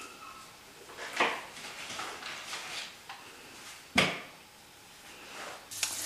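Foil butter wrapper crinkling as the butter is peeled out of it, then one sharp knock about four seconds in. Near the end, butter starts sizzling in a hot frying pan.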